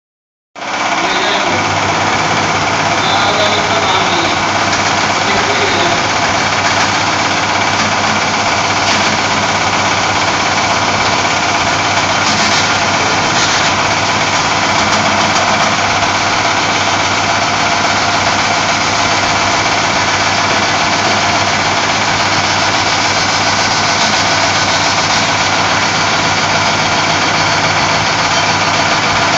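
Resistance seam welding machine running as its roller electrodes weld the seam of a sheet-metal tank shell: a loud, steady hum with spark noise that starts about half a second in and holds without a break.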